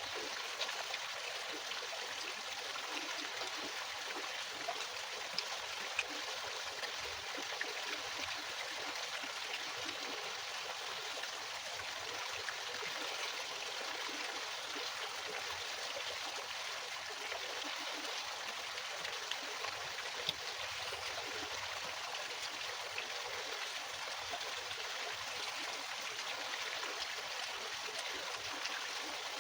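Food frying in hot oil in a pan: a steady sizzle with many small crackling pops.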